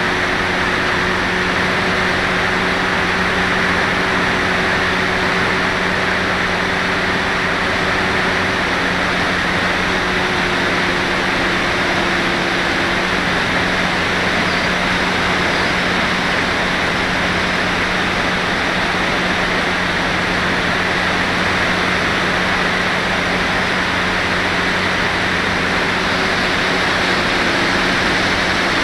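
Air rushing past the small onboard camera of an FPV glider in flight: a loud, steady hiss, with a low steady hum beneath it. A faint higher tone runs along with it and stops about thirteen seconds in.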